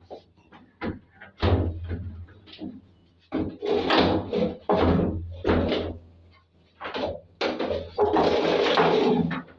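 Irregular knocks, bangs and scraping from a Samsung top-load washing machine's cabinet as it is lifted and carried, with a long rough scrape near the end.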